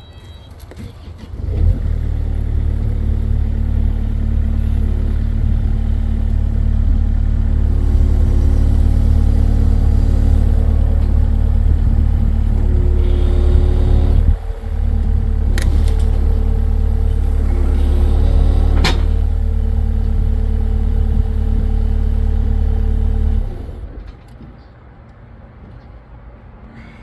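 An engine running steadily with a strong low rumble. It starts about a second and a half in, dips and cuts back briefly about halfway, and stops a few seconds before the end. Two sharp clicks come a few seconds apart in the second half.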